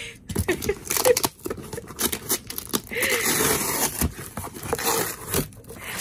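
A shipping box being opened by hand: irregular tearing, scraping and crinkling of cardboard and packing paper.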